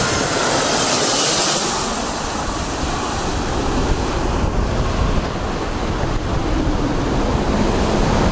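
Jet airliner's engines roaring as it passes low overhead on landing approach, the hissing roar strongest for the first couple of seconds, then a heavy low rumble with wind buffeting the microphone.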